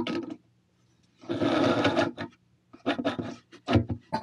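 Power driver whirring for about a second as it drives a screw to fasten a drawer slide to the inside of a cabinet, followed by two shorter bursts.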